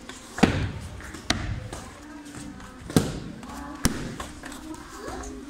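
Kicks slapping a padded taekwondo kick paddle: four sharp smacks in two pairs, each pair about a second apart, with children's chatter in a large hall.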